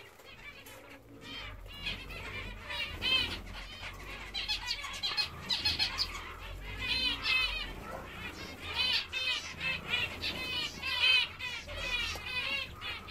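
Small aviary birds chirping: rapid runs of short, high calls that grow busier after the first second or so.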